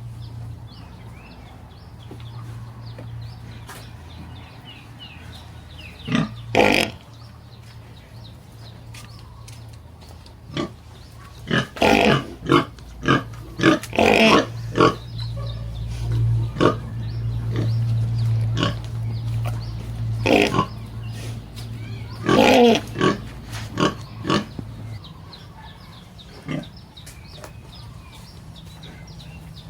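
Pigs grunting and squealing in short irregular bursts, with loud clusters in the middle and again about three-quarters of the way through, over a steady low hum.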